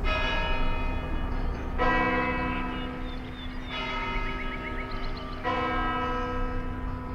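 A church bell tolling: four strokes a little under two seconds apart, each ringing on until the next.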